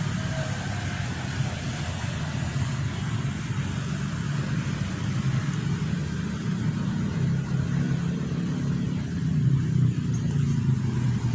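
Steady rumble of road traffic passing nearby, a constant low hum under a wash of noise that gets a little louder near the end.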